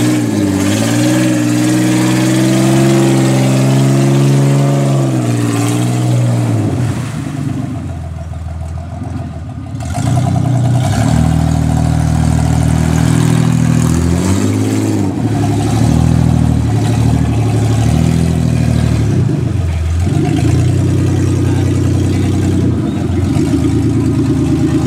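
Ford Bronco II's engine revving up and down as it is driven through mud. It eases off for a few seconds about seven seconds in, then revs up again.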